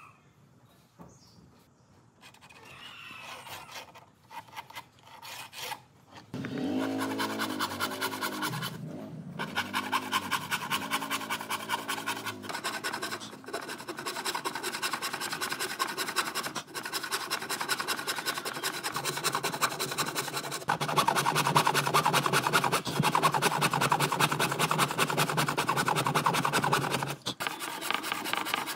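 Wood being worked with an abrasive tool: a dense, rough scraping that starts about six seconds in and runs on, growing louder later, with a low steady hum underneath in the later part.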